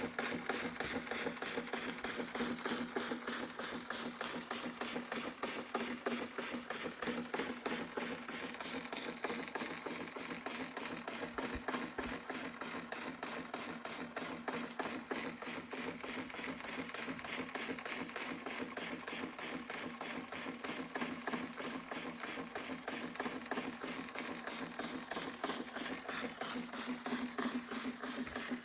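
Märklin 4112/11 toy live-steam engine running steadily with a rapid, even beat.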